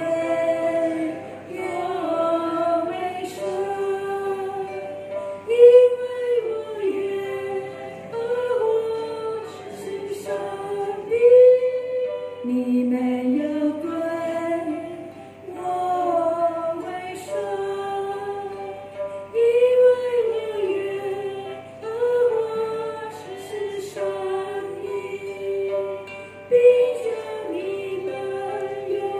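Several women singing a worship song in Chinese, accompanied by plucked harps.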